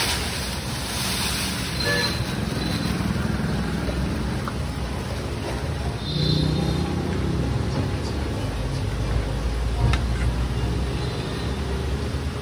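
Steady low rumble of street traffic, with a single sharp knock about ten seconds in.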